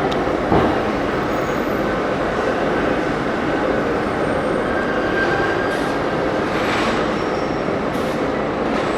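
Steady mechanical din of factory machinery, an even rumbling noise with a few faint high tones over it.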